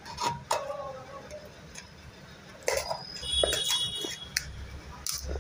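A kitchen knife stabbing and cutting through the paper seal on top of a plastic peanut butter jar, then tearing it away: a series of sharp scratchy scrapes and clicks. A brief high squeal sounds about three and a half seconds in.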